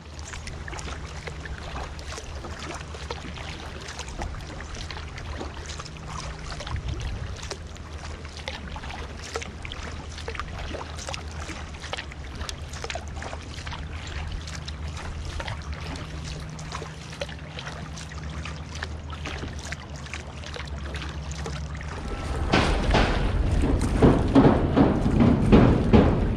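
Water splashing and trickling around a kayak as it is paddled, with many small irregular splashes and drips over a steady low hum. From about 22 seconds in, a louder rushing, splashing noise takes over.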